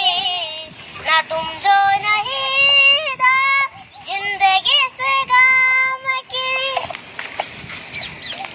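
A boy singing a Hindi song unaccompanied, with long held notes that waver. The singing stops about seven seconds in, leaving only faint background noise.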